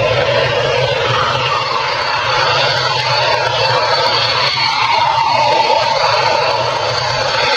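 Jet engines of Dassault Mirage 2000 fighters running at taxi power: a steady rushing noise with a constant whine and a low hum.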